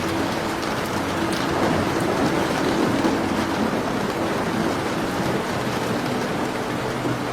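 Steady rain falling on a surface, an even hiss, with a few faint sharp crackles from a fireplace about a second and two seconds in.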